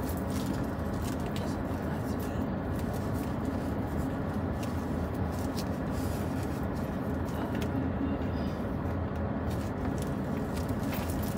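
Steady low hum and hiss inside a car's cabin, with a few faint light clicks.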